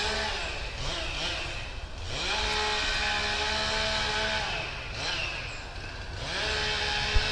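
Chainsaw engine revved up to full throttle and held for a couple of seconds at a time, then let back down to idle, over and over. It drops back right at the start, rises briefly about a second in, holds high from about two to four and a half seconds, and climbs again near the end.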